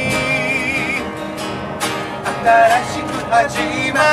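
Two acoustic guitars strummed, with a man singing a melody over them in held, wavering notes.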